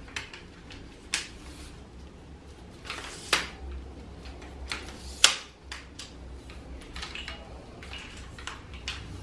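Tripod leg locks clicking as they are opened and closed while the telescoping leg sections are pulled out. There are several sharp clicks and smaller ticks, the loudest about five seconds in.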